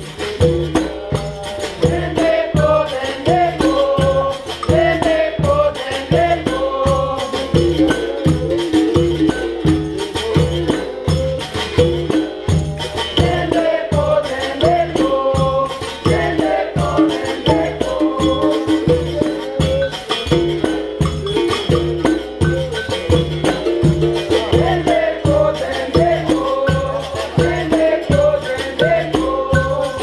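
Capoeira Angola roda music: berimbaus with their caxixi rattles, pandeiro and atabaque drum keeping a steady, even rhythm, with a group singing along.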